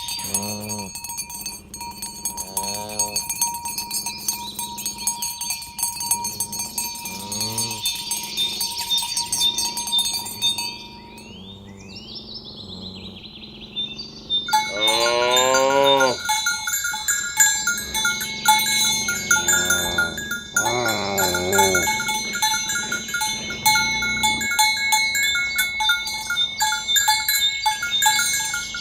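Cattle mooing several times, the loudest call about halfway through, over a constant high-pitched ringing and chiming.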